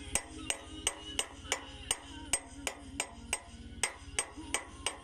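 Steady hammering on steel during work on a bulldozer track's master link bolt, about three ringing blows a second, over a low steady throb.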